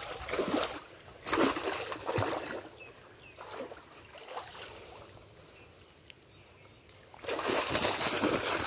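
Shallow stream water splashing and sloshing as a wet fishing net is dragged through it and lifted out. Two short splashes in the first two seconds, a quieter stretch of trickling water, then heavier continuous splashing from about seven seconds in.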